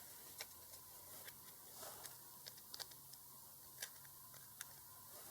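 Faint, irregular small clicks and taps of a plastic remote-control case being handled and fitted together as it is closed.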